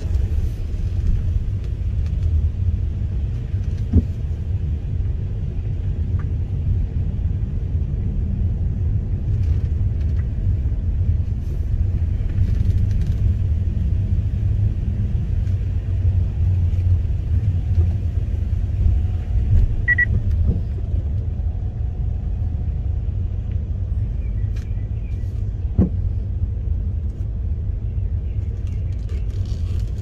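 Steady low rumble of a car driving slowly, heard from inside the cabin: engine and tyre noise, with a couple of faint knocks.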